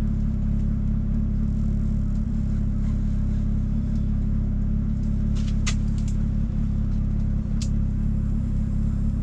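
A steady low mechanical hum, with a few light sharp clicks a little past halfway.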